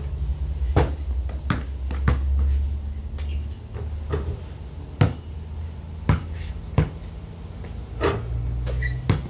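Basketball thudding against the backboard and rim and bouncing on concrete: about eight sharp, irregularly spaced knocks over a steady low rumble.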